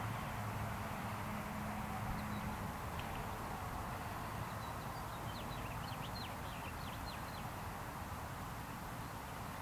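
Steady outdoor rush of wind and distant traffic, with a small bird giving a quick run of short, high chirps about halfway through.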